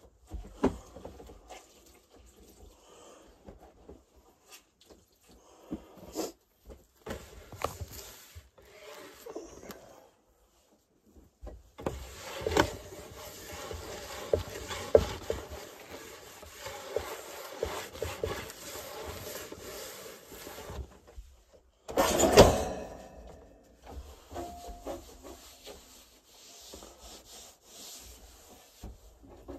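Someone handling things at close range in a small room: rubbing, scraping and scattered knocks. Around the middle there is a stretch of steady rushing or scrubbing noise lasting about nine seconds, followed by one loud knock.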